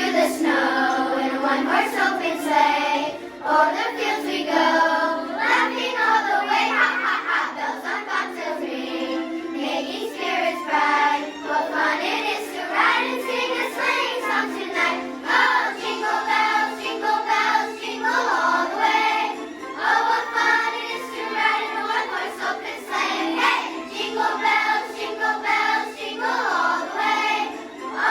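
A children's choir singing a holiday song, with a steady instrumental accompaniment underneath.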